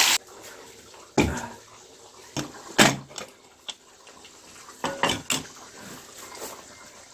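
Metal cookware being handled: a series of separate sharp clanks and clinks of aluminium pots and a lid, the loudest about three seconds in.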